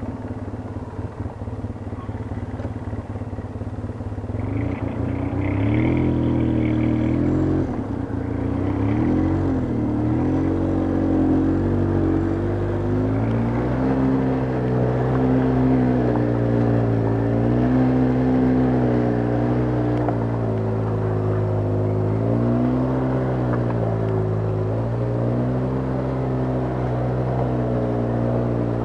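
ATV engine working at low speed over rocky trail, its pitch rising and falling again and again as the throttle is worked. The first few seconds are rougher, with clatter.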